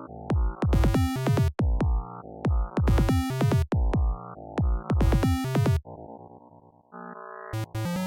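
Electronic intro music: a synthesizer track with a heavy drum-machine kick beat repeating about every two seconds. It drops to a softer sustained synth passage about six seconds in, and the beat comes back near the end.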